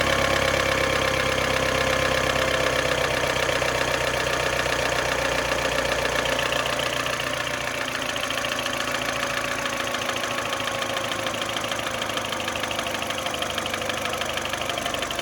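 Mini Cooper R56's N12 1.6-litre four-cylinder engine idling steadily with a knock from piston slap, which the owner puts down to stuck piston rings or a damaged cylinder wall.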